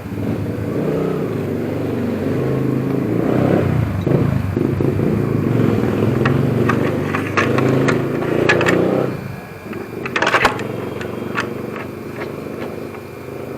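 Makita track saw running and cutting across the end of a red mahogany table top. The motor stops about nine seconds in, followed by a brief clatter.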